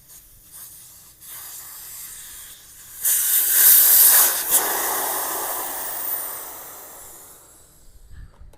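Air escaping from a motorcycle tyre through the valve stem with its valve core removed. A light hiss swells into a loud rush about three seconds in, then tapers away as the tyre deflates.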